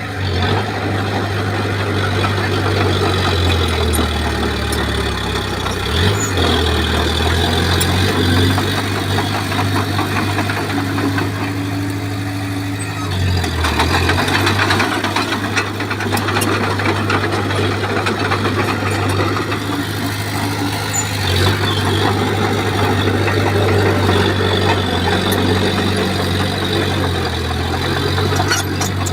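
Bulldozer's diesel engine running under load, its low note sagging briefly a few times as the blade pushes, with a rough scraping and rattling of tracks and moving soil and stone.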